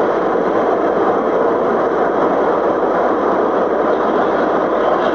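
Steady tyre, wind and engine noise inside a car cruising at highway speed, picked up by a dashcam.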